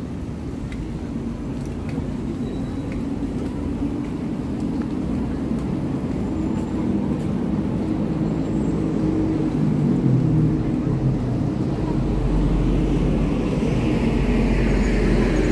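Busy street ambience: a low, steady, engine-like rumble that grows gradually louder, with people's voices in the crowd.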